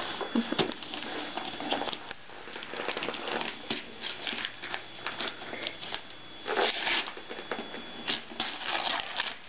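Wrapping paper on a gift box crinkling and tearing as it is handled and ripped open, in a run of short, irregular rustles and rips.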